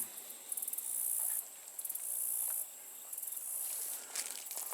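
Insects trilling high-pitched in rapid pulsing bouts, each lasting about a second, in tall grass. There are a few faint rustles near the end.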